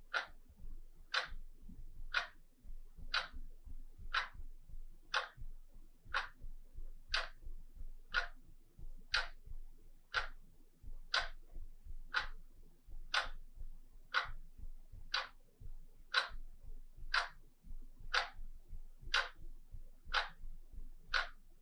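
Wall clock ticking steadily, one clean tick about every second.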